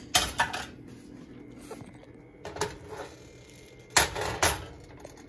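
Utensil scraping and knocking against a nonstick frying pan as whole spice seeds and dried red chillies are stirred while dry-roasting. The sound comes in three short clusters of clicks and scrapes: at the start, around the middle, and about four seconds in.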